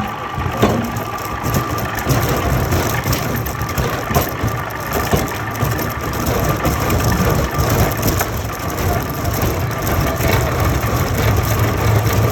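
Wood-peeling machine at work on a log: a steady motor drone under dense, irregular cracking and snapping of wood.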